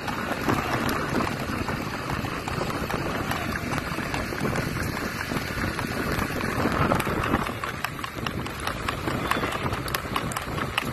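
Steady rushing noise of heavy rain and wind, recorded from a vehicle moving along a wet road, with many small taps and clicks mixed in.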